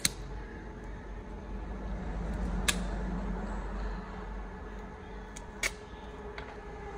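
Steady low machine hum from the optical lens-edging equipment, with two sharp clicks about two and a half and five and a half seconds in and a few fainter ticks as an eyeglass frame is handled.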